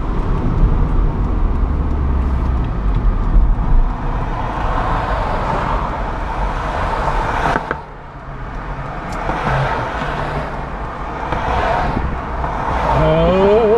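Car driving along a city road, heard from inside the cabin: steady engine and road noise, dipping briefly about eight seconds in.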